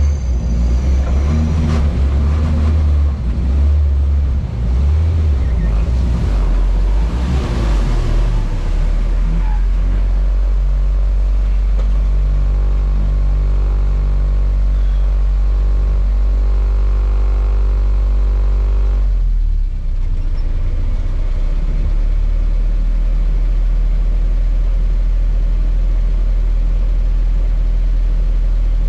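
Niva off-roader's engine running under load. For the first several seconds it revs up and down, then it holds a steady pitch. Its sound drops briefly about two-thirds of the way through, then it runs on steadily.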